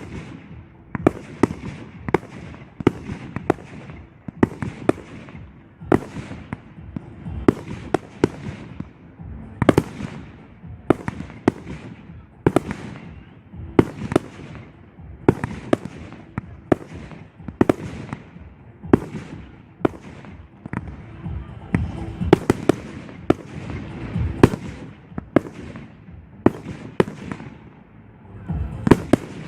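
Aerial firework shells bursting in a rapid, continuous series of sharp bangs, about one or two a second.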